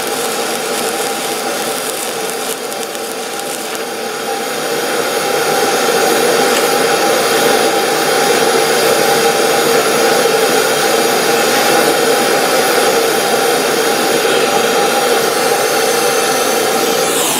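Steady machine drone with a humming note in it, getting louder about five seconds in and then holding.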